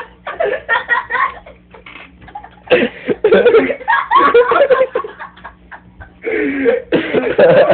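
People laughing in several bursts.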